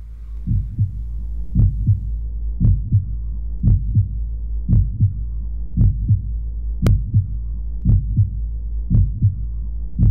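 Heartbeat sound effect: paired lub-dub thumps about once a second over a steady low drone, with a single sharp click about seven seconds in.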